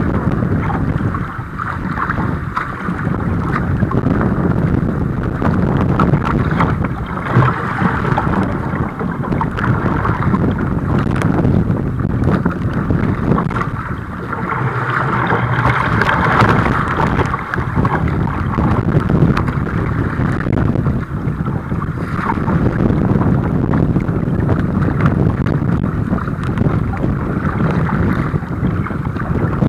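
Wind rumbling on the microphone and water rushing and splashing around a kayak in rough water.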